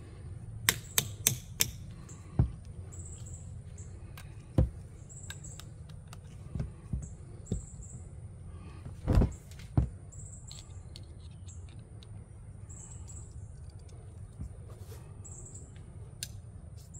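Sharp metallic clicks and taps as a flat-head screwdriver works the screw of a worm-drive hose clamp on a hose mender: a quick run of clicks at the start, then scattered single knocks, the loudest a little past halfway.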